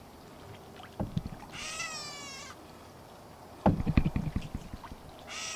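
An animal's call, a wavering, slightly falling cry about a second long, heard about a second and a half in and again at the end. About four seconds in, a louder bout of clicking and rattling from fishing tackle being handled, the loudest sound here, with a single knock about a second in.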